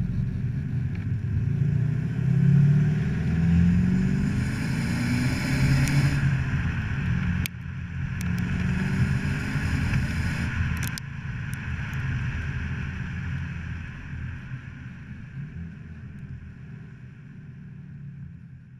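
VW Golf Mk7 GTD's 2.0-litre four-cylinder turbodiesel heard through a Cobra Sport stainless steel performance exhaust, revving up with rising pitch. The sound breaks off sharply about seven and a half seconds in, climbs again, and after about eleven seconds gradually dies away.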